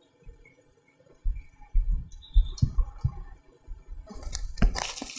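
Soft squishing thumps of bread and filling being handled and pressed on a cling-film-covered wooden cutting board. About four seconds in, a louder crinkling of plastic cling film starts as the film is pulled up around the sandwich stack.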